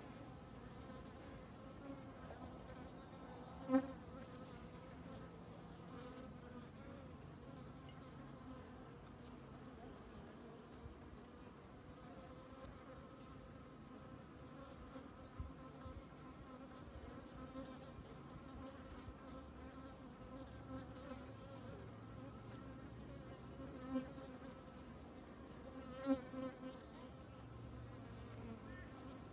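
Honeybees buzzing steadily over an open frame of comb honey. A few short, louder buzzes come as single bees pass close, once about four seconds in and twice near the end.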